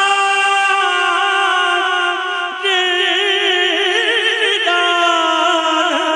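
A man singing a devotional manqabat in praise of Ali, drawing out long, ornamented notes with a wavering vibrato. There is a brief break for breath about two and a half seconds in.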